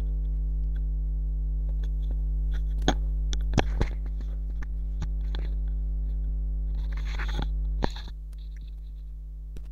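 Steady electrical mains hum with many overtones, broken by a few sharp clicks and a short rustle; after a click about eight seconds in, the hum drops noticeably in level.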